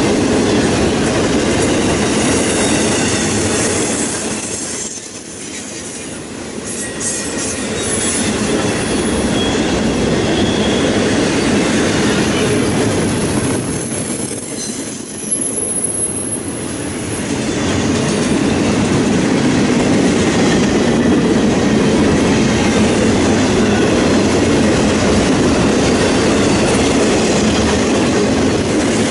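Cars of a CSX intermodal freight train rolling past: the steady rumble and clatter of steel wheels on rail. It dips briefly twice, about five and fifteen seconds in.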